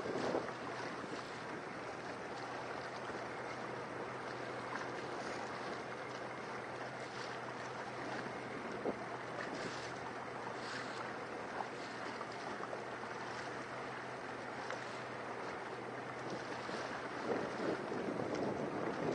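Steady engine hum of the small boat carrying the microphone, with water washing around the hull and wind buffeting the microphone. The wind grows louder near the end.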